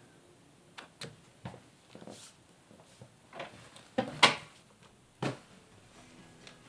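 A few sharp knocks and clicks of a door being handled, the loudest two close together about four seconds in and another about a second later. Soft music starts near the end.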